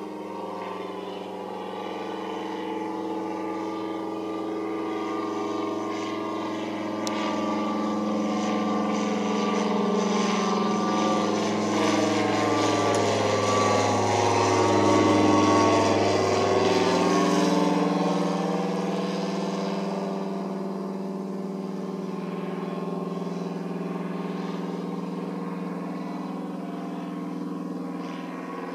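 Tiger Moth biplane's piston engine and propeller running as it flies past overhead. The steady note grows louder, then drops in pitch about 17 seconds in as the plane passes, and carries on more quietly.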